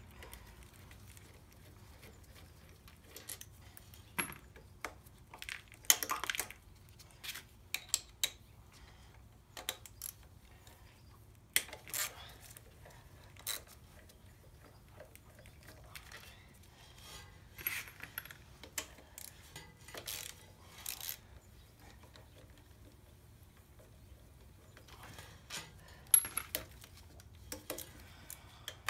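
Irregular metallic clinks and clanks of hand tools, sockets, wrench and bolts, against metal while bolts are removed from a diesel engine block during teardown.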